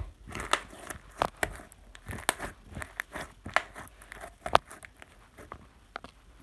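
Irregular clicks and taps with crinkly rustling between them, like close-up handling of objects; the sharpest tap comes about four and a half seconds in.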